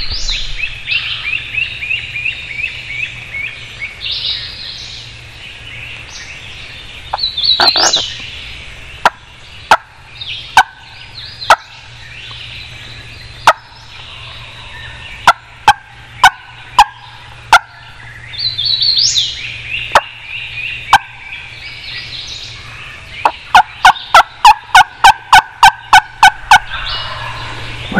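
Wild turkeys calling: a gobbler gobbles in rolling runs of rapid notes several times. Between the gobbles come sharp single hen clucks and yelps, and near the end a loud, even run of about eleven yelps.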